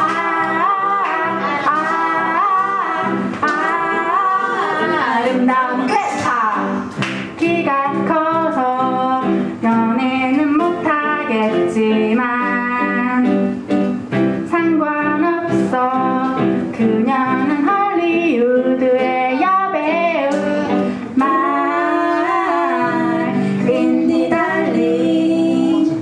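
Women singing a self-composed song, sometimes two voices together, to Casio electric keyboard chords, with a toy xylophone tapped with a mallet.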